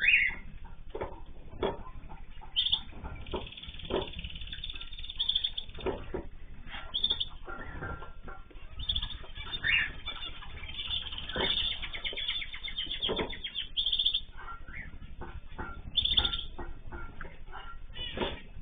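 Small cage birds chirping and calling over one another, with short fluttering wingbeats in between and a quick trill about two-thirds of the way through.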